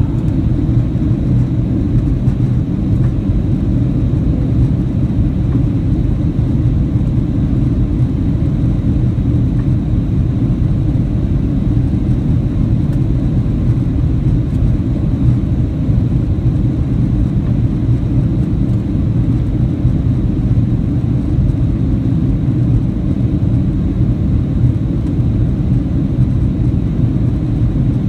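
Steady low roar of engine and airflow noise inside the passenger cabin of a Boeing 737-800 in flight, with no change in pitch or level.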